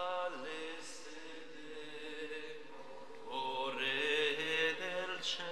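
Voices singing a slow closing hymn in unison, with long held notes and a louder phrase in the second half.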